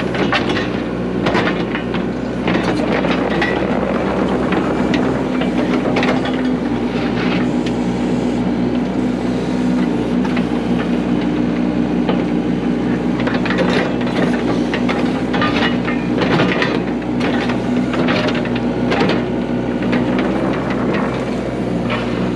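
Yanmar mini excavator's diesel engine running steadily under hydraulic load while a new wide tilt grading bucket digs and scoops, with many sharp cracks and knocks from the bucket and material.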